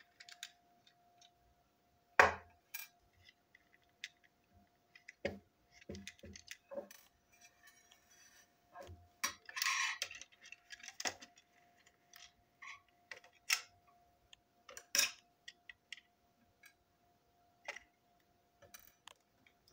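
Small plastic parts of a toy train brake van clicking, knocking and scraping against each other and the tabletop as it is taken apart, with one sharp knock about two seconds in and a longer scrape around the middle. A faint steady hum runs underneath.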